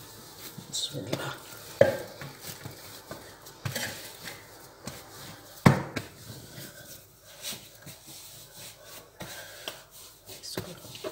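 Hands kneading naan dough on a floured stone counter: irregular soft pats, presses and rubbing, with one sharper slap a little past halfway.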